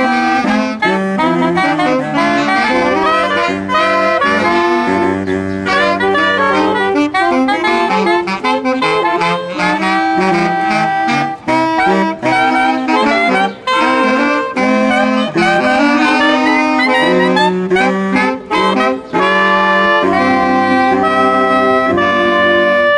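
Saxophone ensemble playing a lively piece in several-part harmony, with quick runs of notes over a low bass line. Near the end the notes lengthen into held chords.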